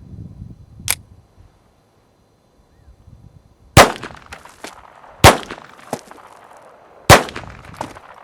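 Ruger 22/45 .22 LR pistol fired three times, about a second and a half apart, each sharp crack trailed by fainter echoes. A single sharp click comes about a second in.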